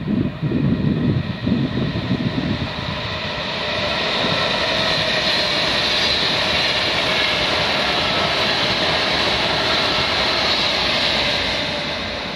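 Virgin Class 390 Pendolino electric train passing at speed. After about two seconds of low buffeting, a steady loud rush with a whine builds up, then begins to fade near the end as the train draws away.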